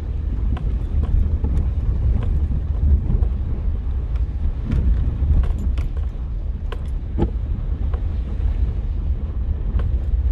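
Cabin noise of a 2008 Suzuki Grand Vitara driving in four-wheel drive on a dirt trail: a steady low rumble of engine and tyres, with scattered light clicks and rattles as it goes over the rough ground.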